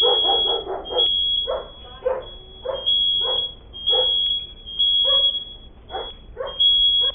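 Kidde smoke alarm sounding a high, steady tone broken by short gaps, over a dog barking repeatedly, about once or twice a second.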